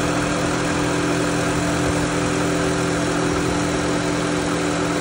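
Car engine idling with its A/C compressor clutch engaged and the compressor running, a steady hum with several fixed low tones. The compressor is working and cooling, though the system is low on refrigerant.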